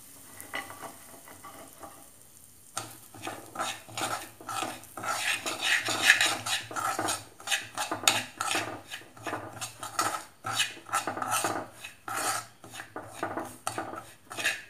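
Semolina (rava) roasting in hot fat in a kadai, sizzling faintly at first. From about three seconds in, a metal spoon stirs and scrapes it against the pan in quick repeated strokes.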